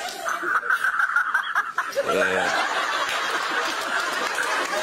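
Studio audience laughing and snickering, a steady wash of many people's laughter, with one short voiced sound about two seconds in.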